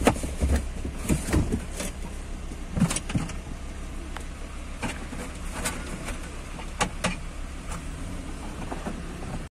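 Inside a car driving along a flooded street: a steady low rumble, with scattered sharp knocks and clicks at irregular moments.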